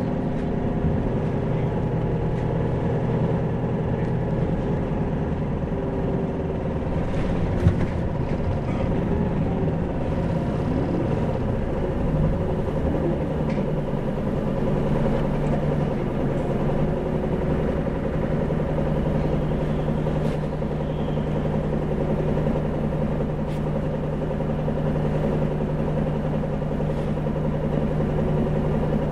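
Isuzu 2PG-LV290N3 city bus's four-cylinder turbo diesel engine running with a steady drone. Its pitch holds level over the second half. A single sharp knock comes about eight seconds in.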